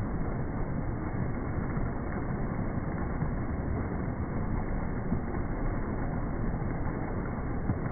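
Several low water jets of a fountain splashing steadily into a shallow pool.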